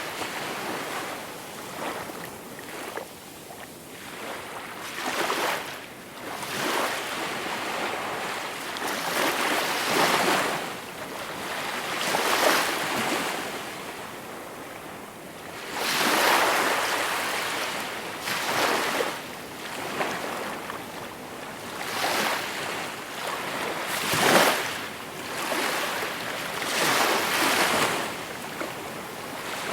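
Calm sea waves breaking and washing on the shore, one surge of surf every two to four seconds, the biggest about sixteen and twenty-four seconds in.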